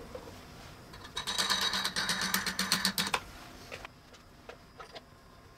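Drill press quill being run down with the feed handle: a rapid, even mechanical clicking rattle of the spindle mechanism lasting about two seconds, followed by a few faint clicks and handling knocks as the chuck is taken in hand.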